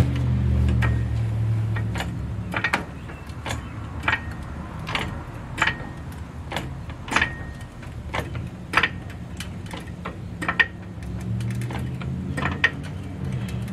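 Hydraulic floor jack being pumped by hand, a metallic click at each stroke about every half second, as it lifts the lower control arm and compresses the coil spring. A low steady hum sits under the clicks at the start, fades, and comes back near the end.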